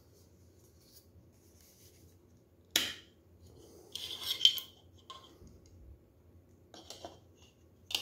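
Plastic attachments of a Xiaomi Mi Vacuum Cleaner Mini handheld vacuum being handled, pulled off and fitted onto its nozzle. There is a sharp click about three seconds in, a short scraping rattle around four seconds, which is the loudest part, and a few lighter clicks near the end.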